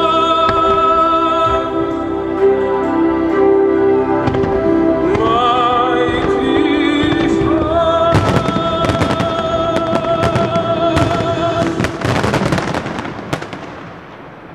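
Fireworks bursting and crackling over music with a singer holding long, wavering notes. The bangs come thick from about eight seconds in, the music stops near twelve seconds, and the sound dies away near the end.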